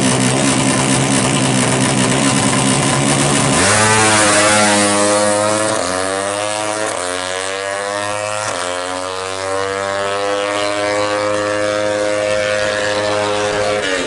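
Yamaha Jupiter Z four-stroke engine bored up to 200cc, running at a steady pitch on the start line, then launched hard about three and a half seconds in. The revs climb in rising sweeps broken by three quick gear changes, then settle into a steady high note as the bike pulls away.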